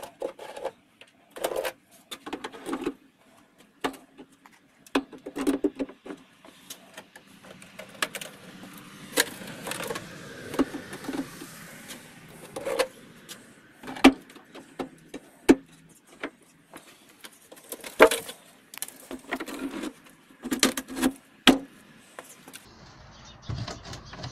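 Beehive comb frames knocking and clattering as they are lifted out of a hive box and stacked into the hive-box chamber of a homemade steam wax melter, with a lid set on near the end. A faint steady hiss runs underneath from the water heating in the pot below.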